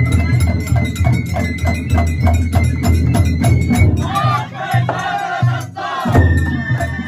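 Japanese festival music: drums beating fast and steady, about four strokes a second. Partway through, a crowd of voices shouts over it, then the drumming breaks off briefly and starts again near the end.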